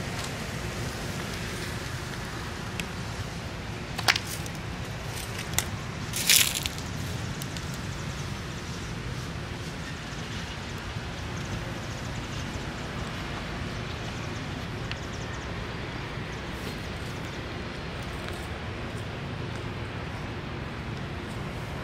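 Steady outdoor background noise, with a few short, sharp crackles about four to six and a half seconds in.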